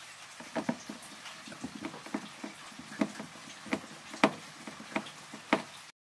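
Irregular sharp knocks and clicks, about two a second, from the black plastic cover panel of a washing machine being handled and fitted back onto the machine body; the loudest come near the end.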